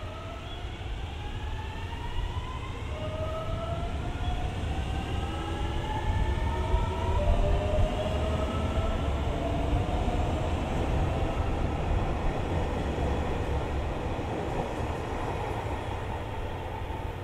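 Anpanman-liveried Shiokaze limited express electric train pulling out and gathering speed. Its motor whine, several tones at once, climbs steadily in pitch as it accelerates, over the low running noise of the wheels and cars. The running noise is loudest about halfway through, then eases as the train draws away.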